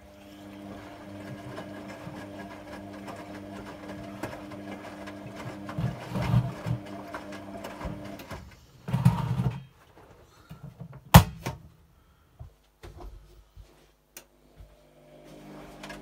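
Hotpoint Aquarius WMA46P washing machine tumbling its drum during a rinse: the motor hums steadily while the wet laundry sloshes and thuds. The drum stops about eight seconds in, a single sharp click follows a few seconds later, and the motor starts turning the drum again near the end.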